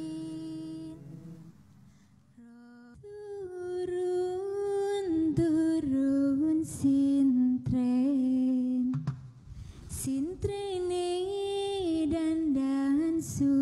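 A lone voice sings a Sintren song in long, held, wavering notes. The singing drops away briefly about two seconds in, then resumes. A few sharp knocks cut through it.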